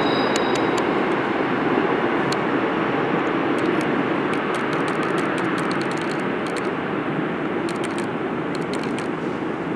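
Korail Bundang Line electric subway train pulling away into the tunnel, its running rumble steadily fading as it recedes. A brief high wheel squeal dies out about a second in, and sharp ticks are scattered through the sound.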